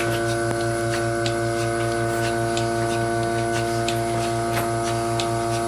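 Surge bucket milking machine running: a steady hum from the vacuum system with a light rhythmic pulsing, and the pulsator clicking about once every two-thirds of a second as it milks the cow.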